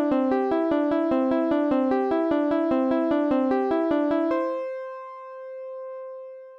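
Background music: a piano-like keyboard plays a quick, even run of notes, about five a second. The run stops about four seconds in, leaving one held note to fade away.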